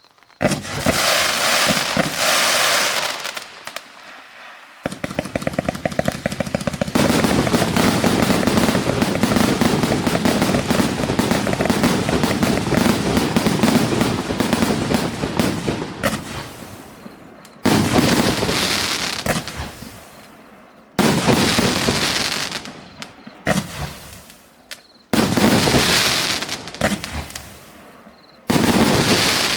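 Fireworks display cake firing its shots: loud launches and aerial bursts, with a long stretch of dense crackling in the middle, then separate bursts every few seconds with quieter gaps between.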